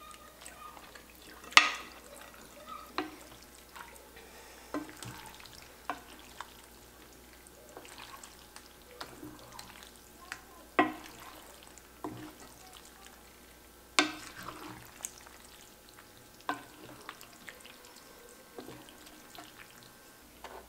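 A wooden spoon stirs sacchetti pasta through a thick egg-and-cheese carbonara sauce in an enameled cast-iron pot, making soft wet stirring sounds. The spoon knocks sharply against the pot every second or two; the loudest knocks come about a second and a half in, near eleven seconds and at fourteen seconds.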